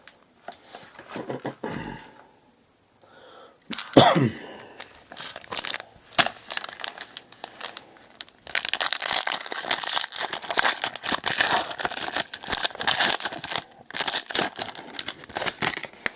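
Plastic wrapping and card-pack wrappers being torn open and crinkled by hand while a box of trading cards is unpacked, with a sharp tear about four seconds in, then dense, continuous crinkling from about halfway through.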